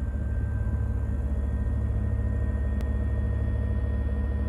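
Gepard self-propelled anti-aircraft gun's engine running steadily: a deep, even rumble with a faint high whine over it.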